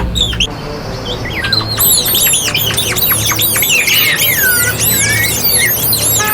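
Many birds chirping and squawking at once: a dense chatter of quick, high chirps that thickens about two seconds in.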